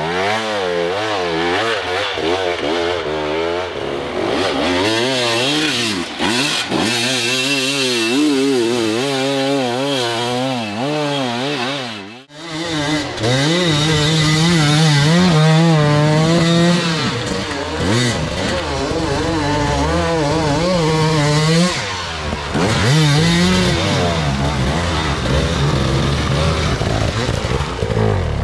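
Enduro dirt bike engines revving rapidly up and down in short blips of the throttle. The sound breaks off suddenly about twelve seconds in. After that an engine holds high revs for longer stretches between blips.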